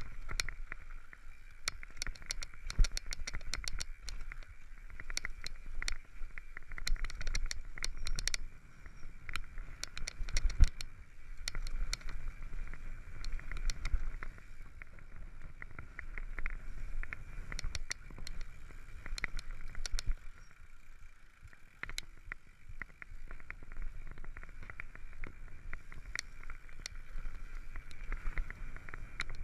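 Mountain bike riding fast down a loose dirt and gravel trail: tyres crunching over stones, the bike rattling, with a low rumble underneath and many sharp clicks and knocks, thickest in the first several seconds. A heavy thump about eleven seconds in.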